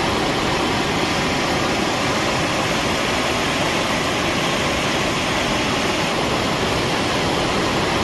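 Rushing floodwater making a steady, loud, even roar with no breaks.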